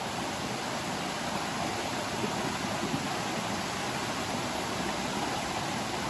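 Steady rushing of a small waterfall pouring into a rocky stream pool.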